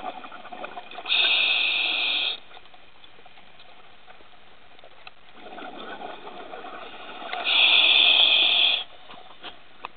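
Scuba regulator breathing heard underwater: two loud bursts of about a second each, one about a second in and one past seven seconds, with softer breathing sound between them.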